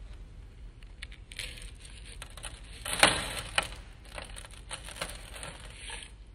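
Small plastic pieces poured and scattered onto a large round metal sheet, pattering and clicking as they land and skitter. The rush of pieces is loudest about three seconds in, then dwindles to scattered ticks.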